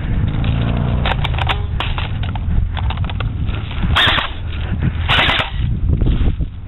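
Airsoft guns firing in several short bursts of rapid clicks, over a steady low rumble on the microphone.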